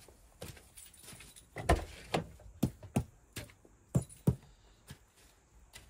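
An irregular series of about eight sharp clicks and knocks, the loudest about a second and a half in, as the driver's door of the car is unlatched and opened. No engine is running.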